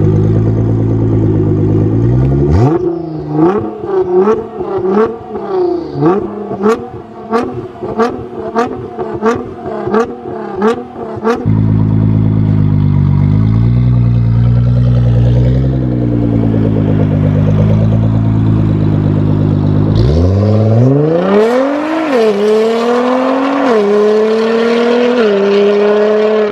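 Nissan GT-R R35's twin-turbo V6 with an Armytrix downpipe and exhaust: idling, then a rapid run of about a dozen sharp throttle blips, roughly two a second, back to idle, and near the end pulling away hard with the pitch climbing and dropping at each upshift.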